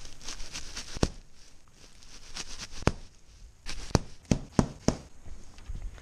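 Dry straw of a small square bale rustling and crackling as it is cut open and handled, with sharp clicks: one about a second in, another near the middle, then four in quick succession in the second half.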